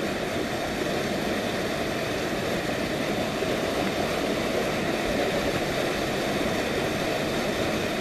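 Steady rush of river water running over rocks, an even sound with no breaks.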